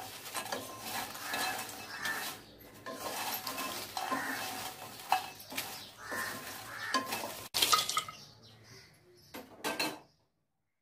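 Wooden spatula stirring and scraping pieces of cinnamon bark around a wok as they dry-roast, the dry bark rustling and clattering against the pan in irregular strokes. The turning keeps the cinnamon from burning. The strokes stop about three-quarters of the way through.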